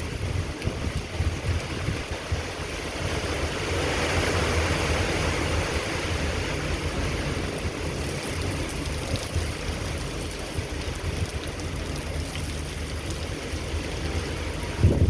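Hurricane Beryl's storm wind blowing hard, buffeting the microphone with a constant low rumble. A stronger gust swells about four seconds in, and there is a brief thump right at the end.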